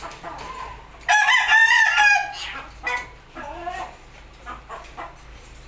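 A bird's loud call about a second in, held for just over a second with a slight fall at the end, followed by a few shorter, quieter calls.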